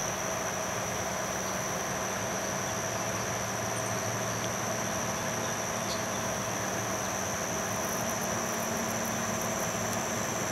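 ALCO diesel locomotive leading a loaded freight train slowly toward the listener, its engine running with a steady low hum, over a steady high buzz of insects.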